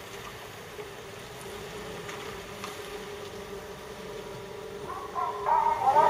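2016 GMC Canyon pickup truck's engine running low and steady as it backs out of a driveway and pulls away. Guitar music comes in about five seconds in and becomes the loudest sound.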